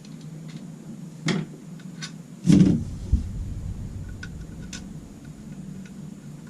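Two knocks on a workbench, the second a heavier thud about two and a half seconds in, with a few light clicks after: tools and fork parts being picked up and set down during the fork rebuild.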